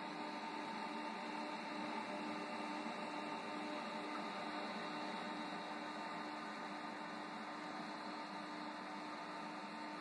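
GE GeoSpring hybrid heat-pump water heater running with its heat pump on: a steady mechanical hum.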